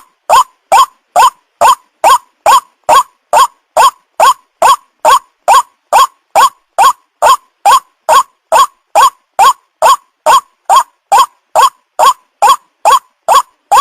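White-breasted waterhen call used as a lure call: one short note repeated at an even, unbroken pace of a little over two a second.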